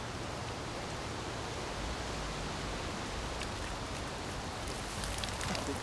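Steady rushing outdoor noise with no clear tone, with scattered faint clicks and rustles from about three seconds in.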